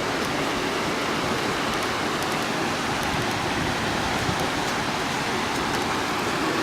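Floodwater rushing past, a steady, unbroken wash of water noise.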